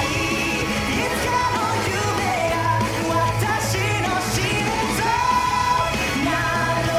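Japanese pop song playing, with a strong female lead vocal singing over a full band backing.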